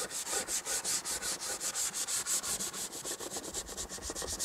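Nylon brush scrubbing a plastic panel in quick, even back-and-forth strokes, about six a second, cleaning mould and grime off it.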